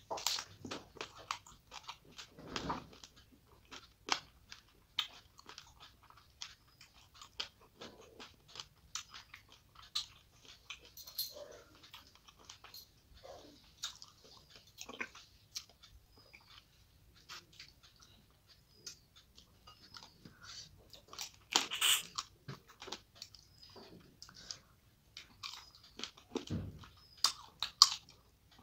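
Close-miked eating of a curried fish head with rice by hand: irregular wet mouth clicks, smacks and crunching as it is chewed, with a louder crunch about three-quarters of the way through.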